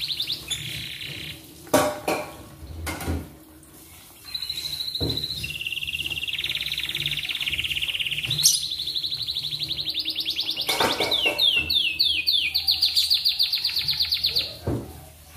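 Domestic canary singing long, rapid trilled rolls of fast repeated notes, broken by a short pause about three seconds in and by a few quick downward-sweeping notes later. A few sharp clicks sound between the phrases.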